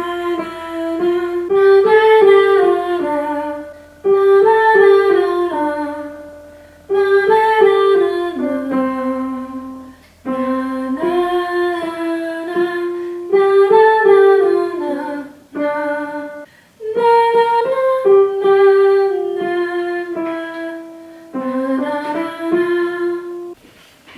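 Digital piano played by hand: a slow melody in short phrases of a few seconds, each note stepping up or down from the last, with brief pauses between the phrases.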